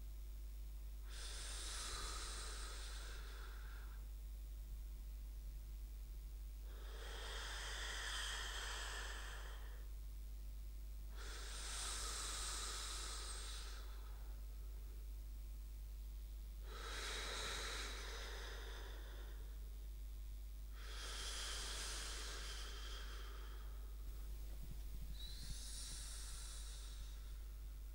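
Slow, regular breathing like a person asleep: six hissing breaths, one every four to five seconds, each about two seconds long.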